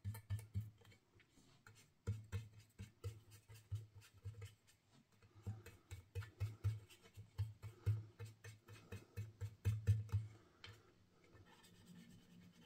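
Ink blending brush rubbing and dabbing ink onto cardstock: quick, soft brushing strokes, several a second, that thin out near the end.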